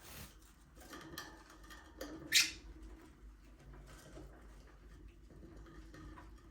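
Budgerigars chirping softly in an aviary, with small scattered clicks, and one sharper, louder chirp about two and a half seconds in.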